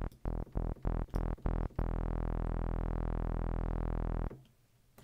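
Synth bass from Logic's Alchemy: a single saw wave tuned down an octave through a low-pass filter with its cutoff pulled back and some resonance. It plays rapid short notes, about five a second, then one note held for about two and a half seconds that stops sharply, with the quick attack and short release set on the amp envelope.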